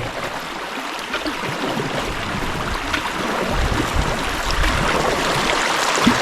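Creek water rushing steadily over a beaver dam, with a few light knocks, likely from the canoe or paddles.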